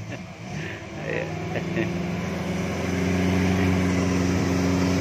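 An off-road 4x4's engine revving up about a second in and holding at steady high revs as it strains to push through deep mud.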